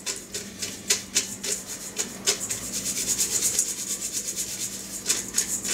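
Floured homemade noodles being shaken in a metal colander over a stainless steel bowl. Each quick shake makes a rustle and a light rattle as the excess flour sifts off.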